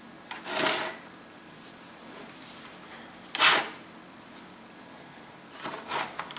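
Three short scraping or rustling handling noises, a couple of seconds apart, over a steady low room hiss; the second is the loudest.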